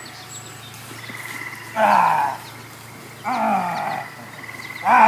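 Large dog giving three harsh growling barks, each under a second long, as it attacks a man in a protective bite jacket.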